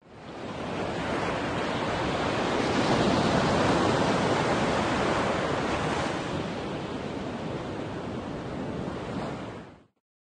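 Sea waves washing: a steady rushing noise that fades in, is loudest about midway, and dies away to nothing near the end.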